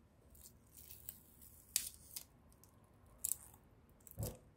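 Clear protective plastic film being peeled off a new webcam by hand: faint, scattered crackles and rustles, with a short duller thump near the end.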